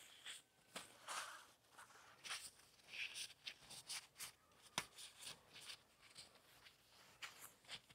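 Faint, irregular rubbing and swishing of a dry cloth rag wiping grease off a steel excavator boom and its hydraulic hoses, with one sharp click about five seconds in.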